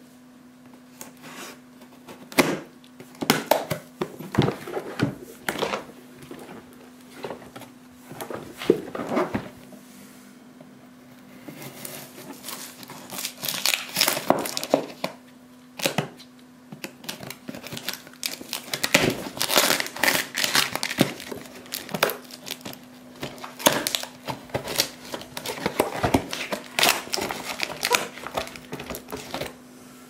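Packaging being unwrapped by hand: irregular crinkling and rustling of wrapping material with some tearing, sparse at first and busier from about twelve seconds in, over a steady low hum.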